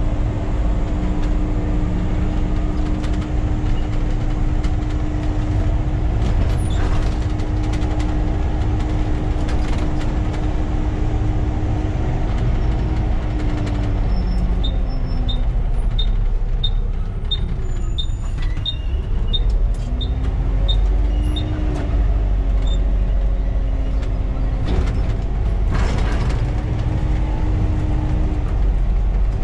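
Volvo B7TL double-decker bus's diesel engine and road rumble heard from the driver's cab while driving. The engine note drops about halfway through as the bus slows, then climbs again as it pulls away. A turn indicator ticks about twice a second while the bus slows, and there are a couple of knocks from the body.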